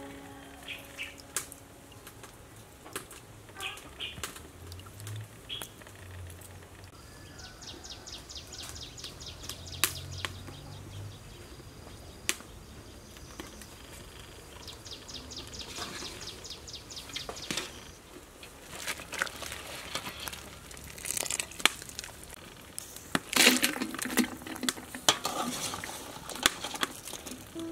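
Cooking handling sounds: pots, lids and utensils being handled, heard as scattered clicks and clatters that grow louder and busier near the end. A high, rapid ticking trill sounds in the background twice, about a third of the way in and again just past halfway.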